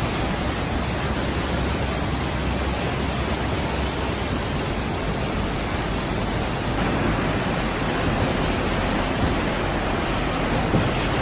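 Floodwater rushing: a steady, dense rushing noise that shifts slightly about seven seconds in.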